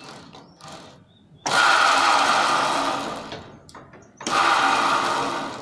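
Electric motor of a well-drilling rig running in two short spells. Each starts abruptly and fades over a second or two, the second one shorter.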